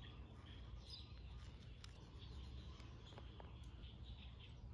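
Near silence: a low steady background hum, with faint bird chirps and a few faint small clicks.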